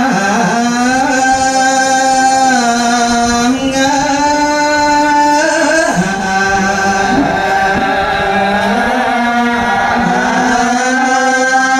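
A single voice chanting in long held notes that glide up and down between pitches, unaccompanied.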